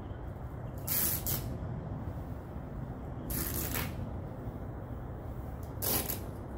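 Masking tape pulled off the roll in short hissy rips, about a second in, midway and near the end, as it is laid along a car body panel, over a steady low hum.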